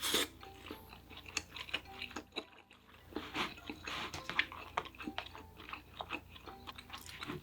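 Close-miked eating sounds: a person chewing and biting food, with many short, irregular crunchy clicks.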